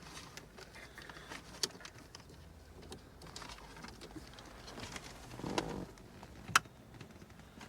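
Faint scattered clicks, taps and rustles of hands handling wiring and plastic dash parts, with one sharp click about six and a half seconds in.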